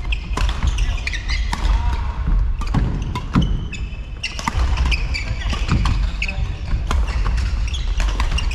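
Badminton rally: sharp, irregular hits of rackets on the shuttlecock, mixed with short squeaks of shoes on the court floor.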